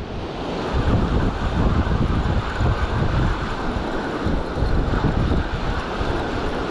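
Wind buffeting the microphone in uneven gusts over a steady rush of surf on the beach.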